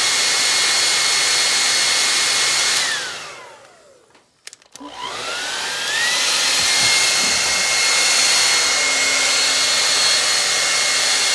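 Handheld hair dryer blowing with a steady whine. About three seconds in it is switched off and winds down with a falling whine. After a brief near-silence broken by a click, it starts again, its whine rising back to full speed over about a second and a half.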